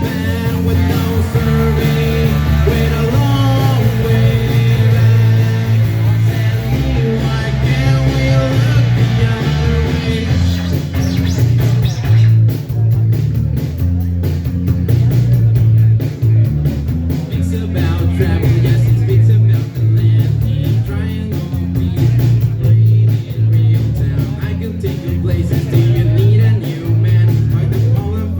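Live rock band playing, led by a Les Paul Standard electric guitar with bass and drums underneath. About twelve seconds in, the playing changes from a held melodic line to a denser, driving rhythm.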